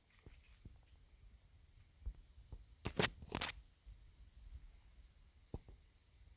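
Footsteps on a dirt path strewn with dry leaves, a few soft steps and then a cluster of louder crunching steps about halfway through, over a steady high-pitched insect drone.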